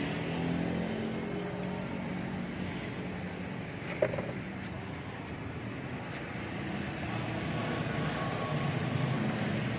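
Street traffic, motorbikes and cars running past in a steady drone, with one engine close by in the first couple of seconds. A single sharp click about four seconds in.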